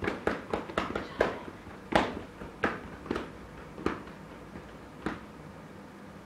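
Scattered handclaps that come quickly at first, then slow and thin out, with the last clap about five seconds in.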